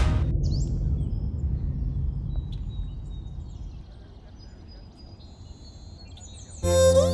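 Outdoor ambience: a low rumble fading away over the first few seconds, with faint bird chirps. Background music with a melody sliding in pitch comes in near the end.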